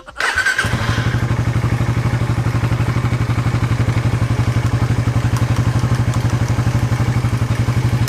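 Suzuki Raider 150 Fi's single-cylinder four-stroke engine started: it catches within about half a second and idles steadily with an even, quick pulse, then shuts off near the end.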